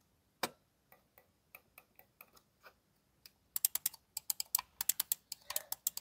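Logitech computer mouse buttons being clicked for a noise test: a few faint, spaced clicks at first, then from about three and a half seconds in a rapid run of louder, sharper clicks, several a second.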